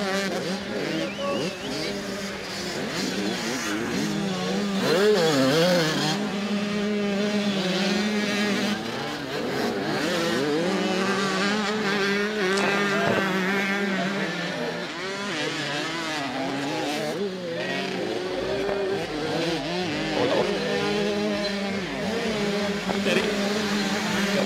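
Several 85cc two-stroke motocross bikes revving hard, their engine notes rising and falling as they race past, over a steady low hum.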